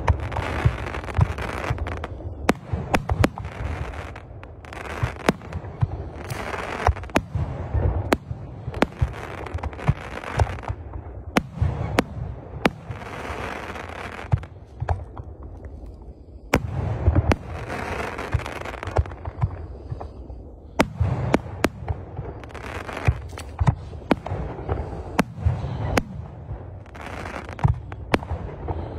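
Fireworks display: aerial shells bursting one after another with sharp bangs, each followed by a rushing noise that dies away over a second or two. There is a short lull about two-thirds of the way through.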